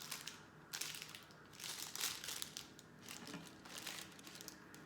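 Crinkling and rustling of LEGO advent calendar packaging being handled, in several short bursts.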